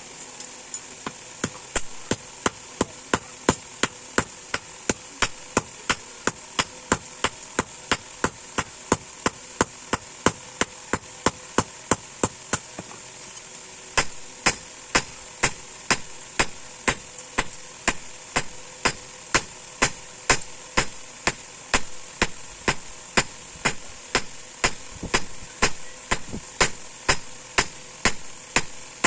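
Steady, rhythmic hammer blows on steel, about two to three a second, each with a short metallic ring, as a spring steel blank is forged into a knife. The blows pause briefly about halfway, then resume louder, over a steady high hiss.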